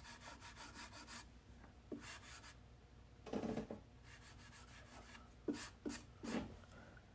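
Fingers rubbing spackling paste into nail holes on painted crown molding: a series of faint, short rubbing strokes, several in quick succession at first and single ones later.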